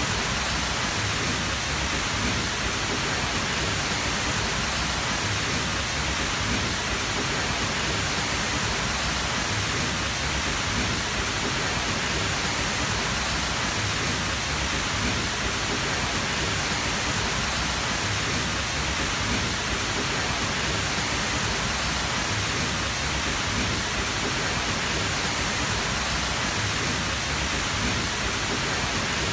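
Large, tall waterfall: water rushing and falling in a steady, unbroken roar of noise, with no changes or separate events.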